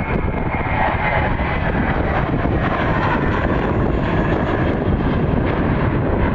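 Jet engines of an Airbus A321 airliner at takeoff thrust, just after liftoff as it climbs away: a steady, loud jet roar with a deep rumble.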